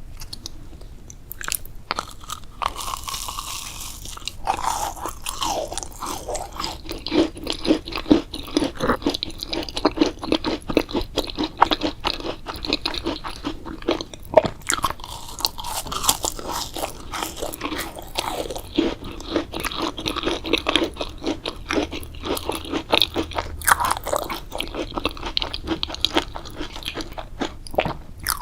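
A person biting and chewing crunchy food: a dense, irregular run of crunches that starts a second or two in.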